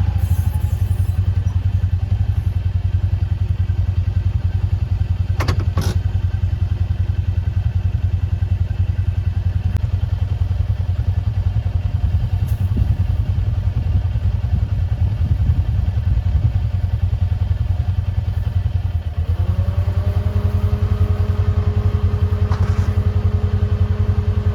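Farm vehicle's engine running steadily with a low rumble, with a sharp double knock about five and a half seconds in. From about two-thirds of the way through, a whine comes in, rising and then holding steady.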